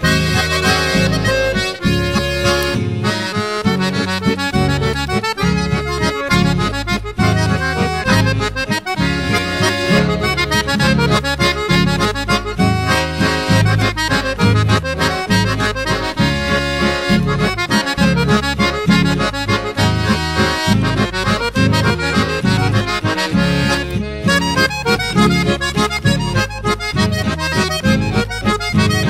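Chamamé music: an accordion carries the melody over a steady, even beat, in an instrumental passage.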